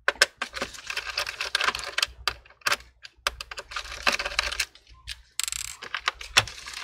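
Phillips screwdriver backing screws out of a plastic laptop bottom case: a rapid run of small clicks and taps from the driver tip and gloved fingers on the plastic, with a short brushing hiss about five seconds in.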